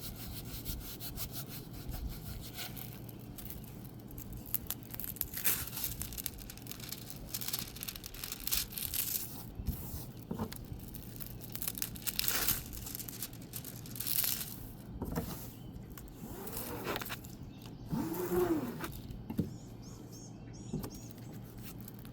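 Plastic packaging and a rolled diamond painting canvas being handled and unwrapped: intermittent crinkling, rustling and rubbing, with a brief squeak near the end.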